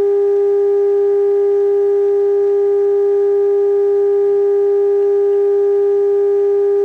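A steady, unwavering single-pitched test tone with faint overtones, played through the speaker of a Zenith AA5 tube radio. It is the signal generator's audio modulation, received on 455 kc while the radio's IF stages are being aligned, and it holds steady at its peak.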